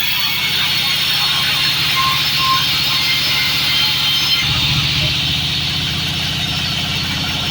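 Engine running steadily with an even, fast pulsing beat, with a steady hiss over it.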